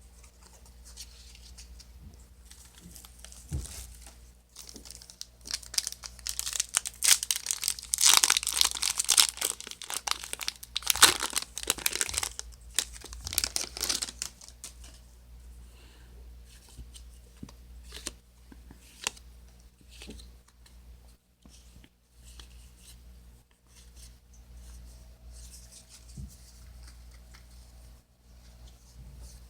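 Foil trading-card booster pack wrapper being torn open and crinkled. The crinkling is loudest for several seconds in the first half, then dies down to sparse light rustling and clicks.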